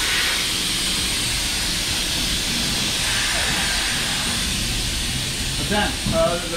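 Steady hiss of compressed air, loud and even, in a tire shop. Men's voices come in briefly near the end.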